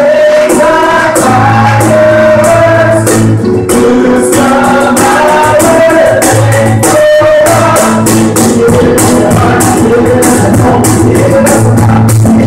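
A live band playing a worship song: voices singing into microphones over an acoustic guitar, with a cajón keeping a steady beat.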